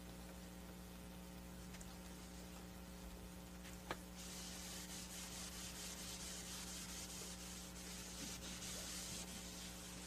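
Steady electrical mains hum. A single click about four seconds in is followed by about five seconds of a soft, rapidly fluttering hiss, like something rubbing or scratching.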